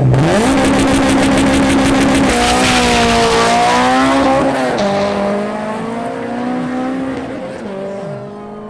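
Audi SQ5 and Honda Civic Si launching off the drag strip line at full throttle: engines rev hard, their pitch climbing and then dropping at upshifts about two, four and a half and seven and a half seconds in, fading as they pull away.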